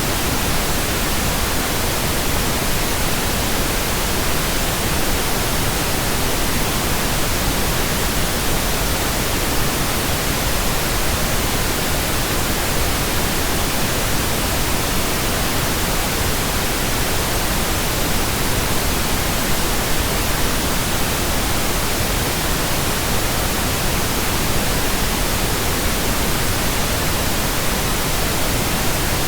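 Steady pink noise: an even, unchanging hiss spread across the whole range from deep to high.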